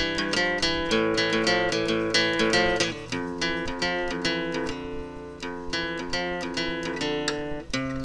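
Background music led by acoustic guitar, strummed and plucked in quick notes, a little sparser in the middle and fuller again near the end.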